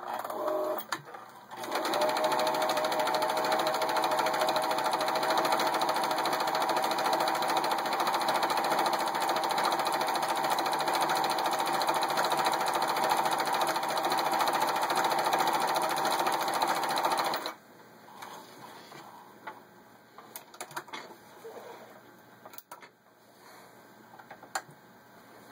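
Pfaff 297-1 embroidery sewing machine stitching a decorative pattern. It runs steadily at speed for about fifteen seconds and then stops abruptly. Faint clicks and rustling follow as the cloth and thread are pulled away.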